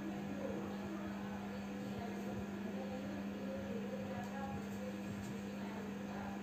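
Steady low electrical hum under faint background noise, with no clear speech.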